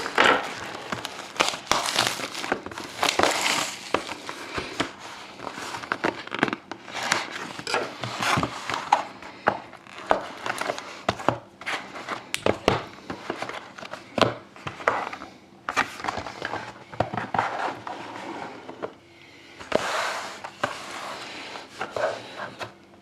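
Plastic wrapping crinkling and tearing as a sealed trading card box and its packs are opened, in irregular rustles and crackles.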